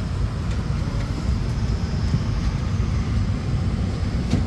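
Steady low rumble inside the cabin of an Airbus A220-300 standing on the ground before departure, with a short click near the end.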